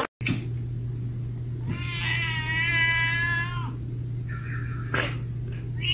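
A domestic cat gives one long, drawn-out meow lasting almost two seconds, and starts another right at the end, over a steady low hum.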